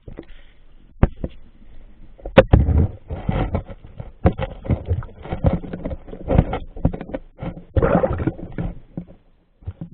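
Water splashing and sloshing in irregular muffled bursts, with a couple of sharp knocks in the first few seconds.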